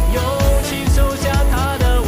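Background pop music: a sung vocal over a steady beat of about two pulses a second.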